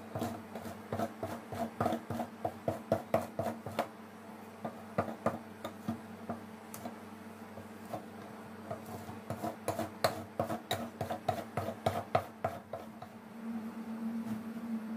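Metal spatula tapping and scraping on a stainless steel rolled-ice-cream pan: runs of quick taps at about three to four a second, pausing and starting again, then a steadier scrape near the end as the frozen sheet is pushed up into a roll.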